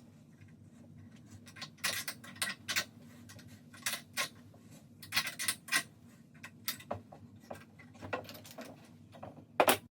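A C-clamp being screwed down to press wooden dowels into a solid pine shelf side: irregular sharp metallic clicks and creaks, a few each second, with the loudest pair near the end before the sound cuts off.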